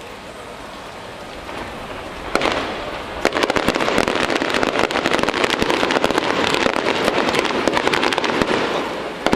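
Fireworks: a single bang a little over two seconds in, then from about three seconds in a dense, continuous crackling of many small bursts and pops, with another bang near the end.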